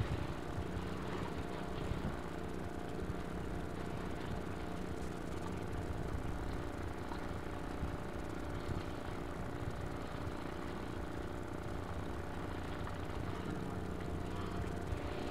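A boat's engine running steadily at low revs, an even droning hum that holds at one pitch throughout.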